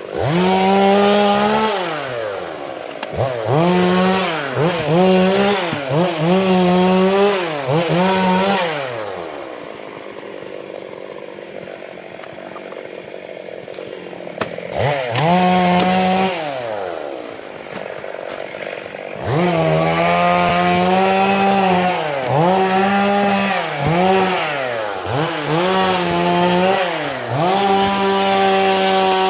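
Chainsaw cutting teak wood, revving up and dropping back again and again. About a third of the way in it falls back to a quieter idle for several seconds with one short rev, then runs at high speed again, cutting steadily through the last third.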